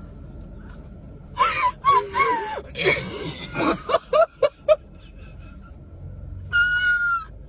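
Two women laughing hysterically: shrieking, wheezing laughter in uneven bursts, then a quick run of short gasping squeaks about four seconds in, and near the end one long, high-pitched held cry.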